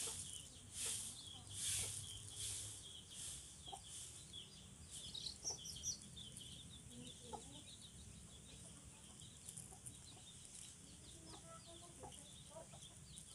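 Domestic chickens clucking faintly in the background, with scattered small chirps, and a few soft rustles in the first few seconds.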